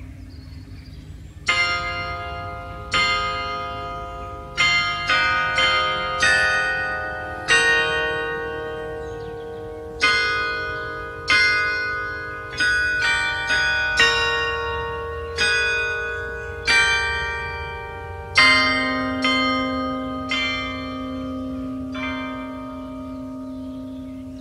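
Carillon bells playing a slow melody: single bronze bells struck one after another, about one note a second with a few quicker runs, each ringing on and overlapping the next. The first note comes about a second and a half in, and a deeper bell enters about three-quarters of the way through and hums on beneath the tune.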